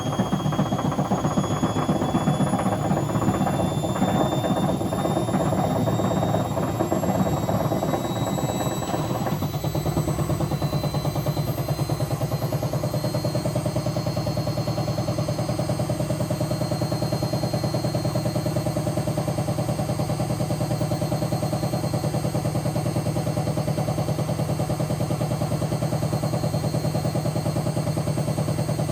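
Hotpoint BHWMXL145 washing machine on a spin with a snapped drum spider. The motor whine rises slowly as the drum speeds up, while the drum knocks and rattles, settling about nine seconds in to a steadier hum.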